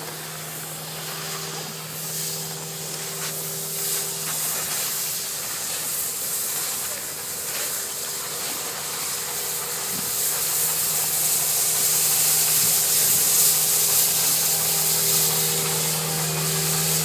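Skid-steer loader running with a rotary brush attachment spinning, sweeping snow off the ice: a steady hiss of brushed snow over a low engine hum. It grows louder in the second half as the machine comes close.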